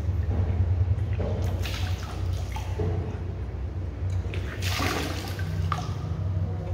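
Water being forced back up and gushing out of the mouth into a bucket during Kunjal Kriya, the yogic water-vomiting cleanse, with retching as fingers press the back of the throat. The gushes come in surges, strongest about a second and a half in and again near five seconds.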